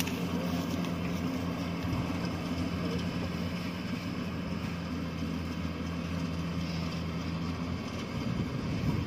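Yanmar YH850 combine harvester's diesel engine running steadily as it cuts and threshes rice, a constant low drone.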